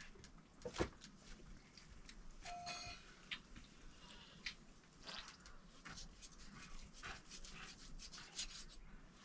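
Faint scattered clicks and knocks, the loudest just under a second in, with one short animal call about two and a half seconds in.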